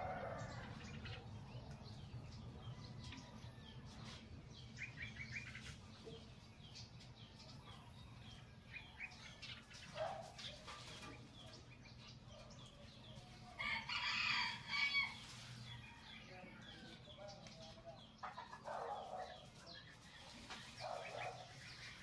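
A rooster crowing once, a loud call of about two seconds about two-thirds of the way through, among scattered short chicken clucks and bird chirps. A low steady hum runs underneath and fades out near the end.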